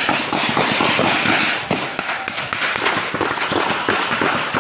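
Dense crackle of rapid gunfire, many shots overlapping in a continuous stream with no break.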